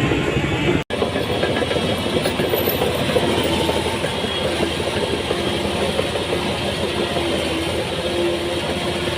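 Heavy diesel earthmoving machinery running steadily, with a rattling clatter over the engine. The sound drops out for an instant about a second in and resumes.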